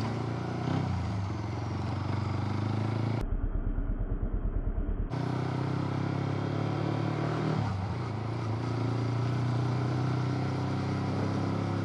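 Modified Yamaha R15 V3's 155 cc single-cylinder engine running steadily while the bike is ridden, with a brief dip in pitch about seven and a half seconds in. For about two seconds near the middle it turns muffled, with a fast pulsing.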